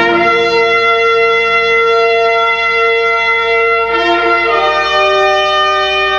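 Brass music: long, held brass chords that move to new chords about four seconds in.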